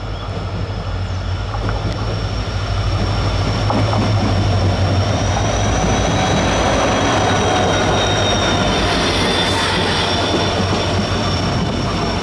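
WDP4D diesel-electric locomotive, with its EMD 16-cylinder two-stroke engine, drawing near and passing at speed. Its low engine drone grows louder over the first few seconds. The passenger coaches then roll by, with a steady high whine over the rumble of the wheels.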